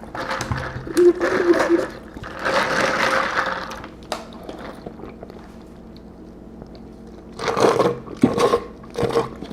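Close-miked eating sounds: bursts of chewing and handling of food, with a few quieter seconds in the middle.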